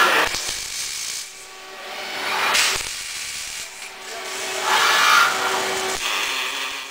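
Machine noise from a welding robot cell as the robot moves its torch between welds. There are three swells of hissing, rasping noise, about two and a half seconds apart, over a faint steady hum, and the sound cuts off suddenly at the very end.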